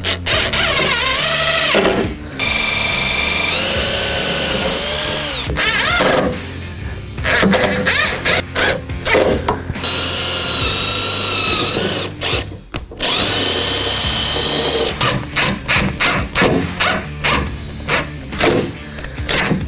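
Cordless drill driving screws through mounting brackets into the underside of a truck tailgate. It runs in several long bursts, its motor whine rising and falling with the trigger, then goes to quick short pulses in the last few seconds.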